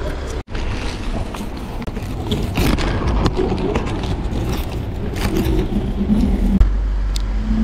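Road traffic passing on a street, with wind rumbling on the microphone and some rustling. The sound drops out briefly about half a second in.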